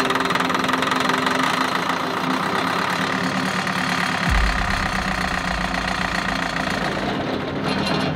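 Four-cylinder two-stroke Detroit Diesel engine turning over on its starter while starting fluid is sprayed into the intake, with no fuel reaching it. It runs steadily, a deeper rumble joins about halfway, and it stops shortly before the end.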